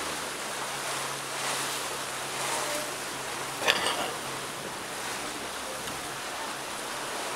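Water rushing and splashing along a sailing boat's hull, with wind buffeting the microphone. A faint low hum fades out near the end, and there is one sharp knock about three and a half seconds in.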